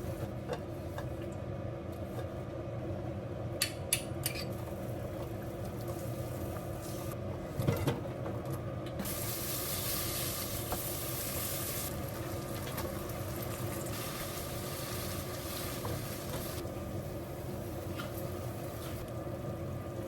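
Beef brisket and bean sprouts stir-frying and sizzling in a pan, with a few sharp utensil clicks against the pan and a thump. The sizzle grows louder about halfway through. A steady low hum runs underneath.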